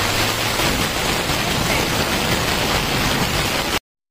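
Steady hiss of heavy hurricane rain and floodwater rushing through a flooded street, breaking off abruptly near the end.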